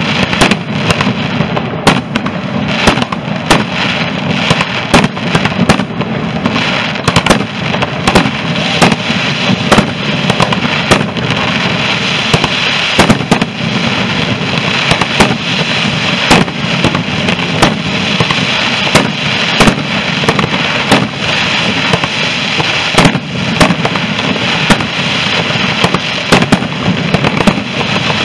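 Fireworks display: a dense run of sharp bangs from bursting aerial shells, several a second, over a steady din.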